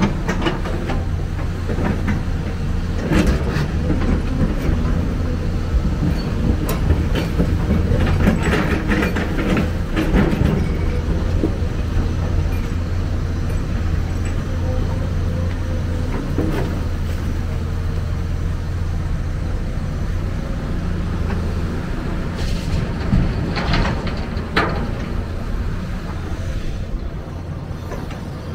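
Hyundai crawler excavator's diesel engine running steadily under working load as it digs into soil and rock, with clusters of metallic clanks and knocks from the steel bucket and stones at intervals.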